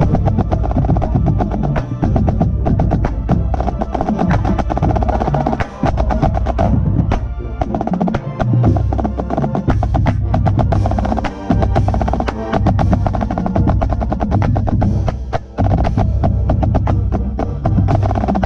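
Marching snare drum heard up close, playing rapid strokes and rolls in front of the full marching band, with sustained low ensemble sound underneath.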